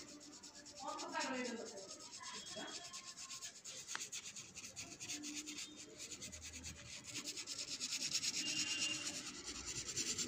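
Watercolour brush scrubbing on sketchbook paper in quick, repeated back-and-forth strokes, making a dry scratchy rub. A short falling tone sounds about a second in.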